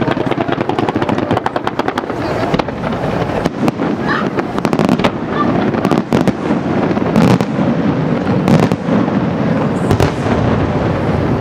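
Fireworks display: a rapid volley of sharp cracks, about eight to ten a second, for the first couple of seconds, then separate heavier shell bursts every second or so.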